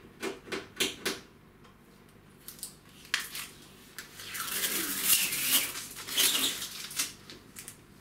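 Blue packing tape being picked at and peeled off the plastic top of a new tumble dryer: a few light clicks in the first second, then, from about four seconds in, a ragged ripping as the tape tears away, lasting two to three seconds.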